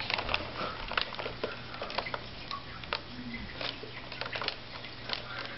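Handling noise from a Panasonic VHS camcorder being turned over on a wooden table: irregular light clicks and taps of its plastic body and fittings, with small rustles of the strap.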